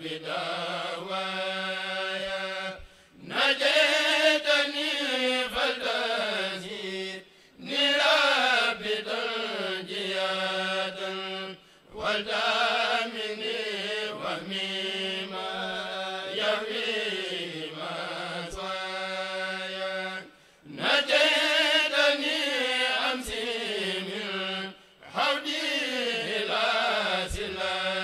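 A kourel, a group of men, chanting a khassida (a Mouride devotional poem) together through microphones. The chant comes in long, melismatic phrases, with short breaks for breath about every four or five seconds.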